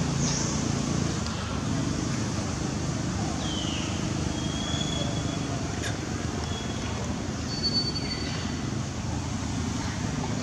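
Outdoor background: a steady low rumble like distant road traffic, with a few brief, thin, high whistling chirps, some falling in pitch.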